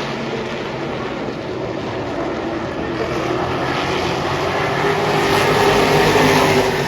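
A field of street stock race cars running on a short oval track, their engines droning together. It grows louder from about two seconds in and peaks near the end as the pack comes by.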